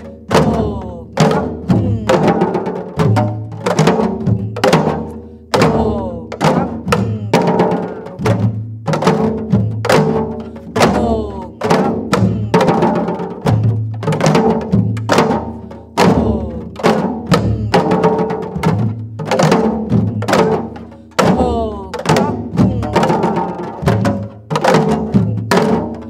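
Several janggu, Korean hourglass drums, played together in the gutgeori rhythm: a steady run of sharp stick strokes and deeper ringing drum tones, without a break.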